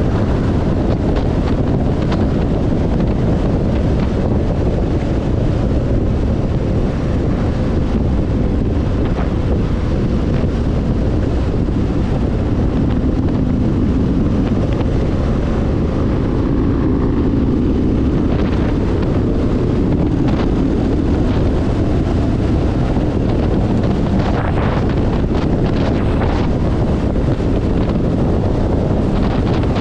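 Steady wind rush buffeting the microphone of a motorcycle at cruising speed, over the low rumble of the bike and its tyres on the road.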